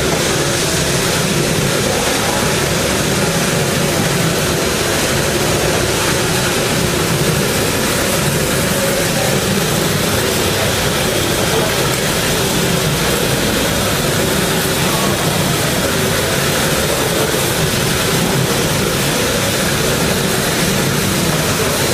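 Discovery TP stretch wrapping turntable running: a steady, even mechanical noise as the turntable rotates the load and the film carriage wraps it.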